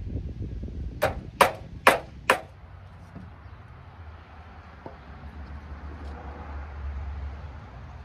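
Four quick hammer blows on a wooden board, about half a second apart, as if driving a nail.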